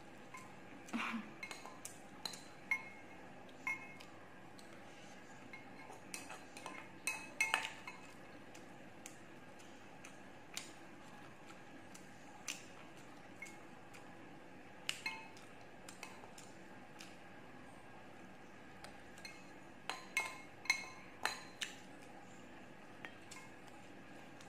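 Eating utensils clinking and tapping against a glass bowl and dishes: scattered, irregular light clinks with short ringing, some in quick clusters.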